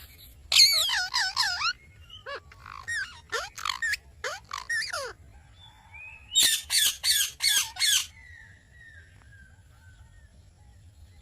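Psittacula parakeets (ringneck-type parrots) squawking in bouts: a quick run of wavering calls, then a string of shorter calls, then about five loud harsh screeches in a row near the middle.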